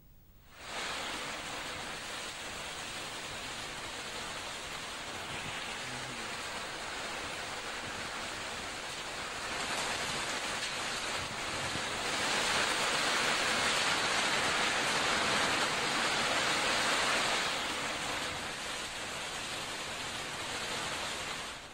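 Heavy rain pouring down, a steady hiss that swells about halfway through, eases again and cuts off at the end.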